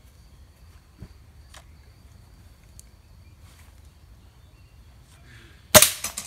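A single air rifle shot near the end, a sharp crack with a short ringing tail, over quiet outdoor background.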